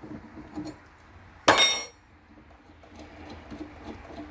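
A single sharp metallic clank with a short ringing tail about a second and a half in, as small metal parts and tools are handled during assembly, with light clicks and rattles around it.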